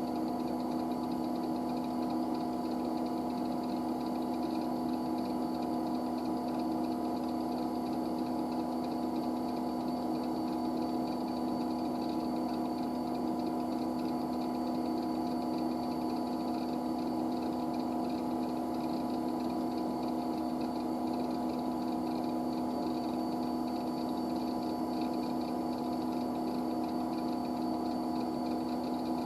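IBM 9535 running: a steady machine hum of several held tones over a hiss.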